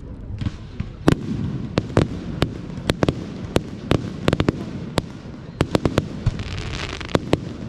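Fireworks going off: a rapid, irregular run of sharp bangs over a continuous rumble of more distant bursts, with stretches of crackling hiss.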